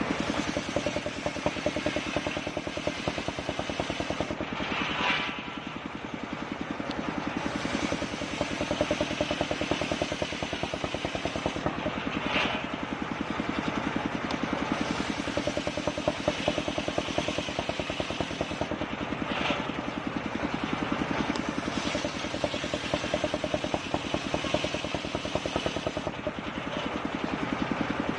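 Circular saw rig cutting kapok wood, running steadily with a fast even engine-like pulse. The sound changes briefly about every seven seconds as the work repeats.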